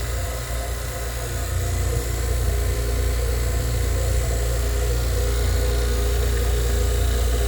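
Refrigeration vacuum pump running with a steady low drone, evacuating a refrigerator's sealed system before it is charged with R600a.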